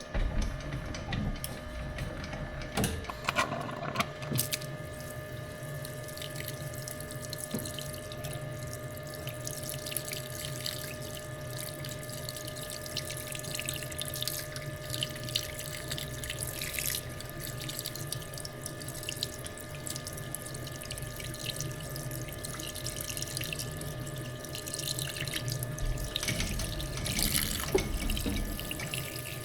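Metal lathe running while turning steel bar stock: a steady machine whine under a hissing, splashy cutting noise, louder for a few seconds near the end.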